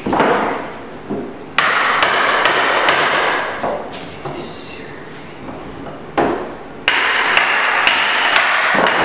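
Hammer blows on oak tongue-and-groove floorboards being fitted: a run of about four sharp knocks about a second and a half in, a pause, then another run of about five in the last three seconds.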